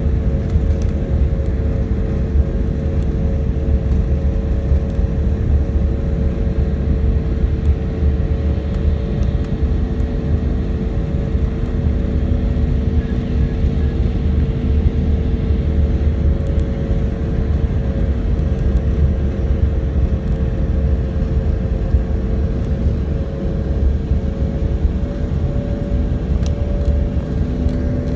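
Airliner cabin noise on final approach: jet engines and airflow make a steady low rumble with a constant engine drone over it, and a second, lower drone comes in about ten seconds in.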